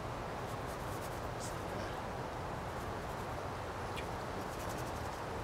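Steady outdoor background hiss, with a few faint soft scratches of a paintbrush being dabbed and stroked across the painted surface.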